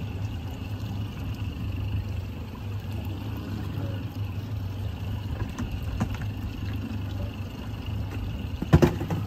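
A boat's 150 hp outboard motor idling with a steady low hum, under a wash of wind and water noise. A single sharp knock comes near the end.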